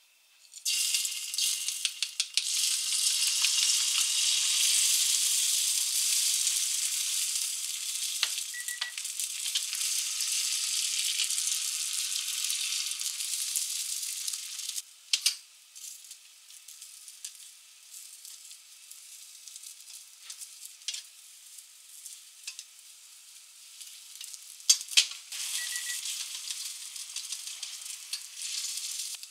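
Beaten egg with aosa seaweed hitting a hot copper tamagoyaki pan and sizzling as it sets. About fifteen seconds in the sizzle drops to a quieter one, with a few sharp taps of chopsticks against the pan as the omelette is rolled.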